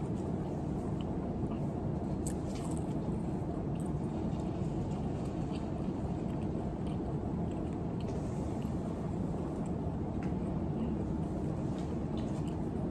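A person chewing food with the mouth close to the microphone, with a few faint clicks of handling, over a steady low hum.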